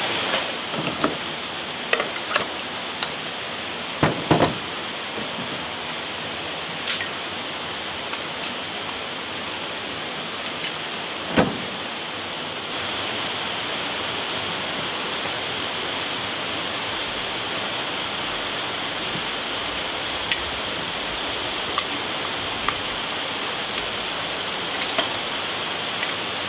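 Steady rushing of a stream, an even hiss of running water, with scattered clicks, knocks and clinks on top. The water noise gets a little louder about halfway through.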